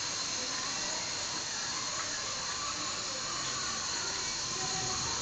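Steady hiss from a small steel pot of water being heated to the boil on a burner.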